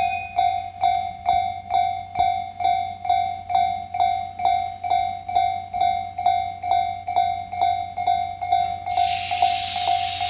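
Japanese level-crossing alarm bell ringing in a steady, even clang about twice a second. Near the end a loud hiss starts up: the C11 325 steam locomotive letting off steam.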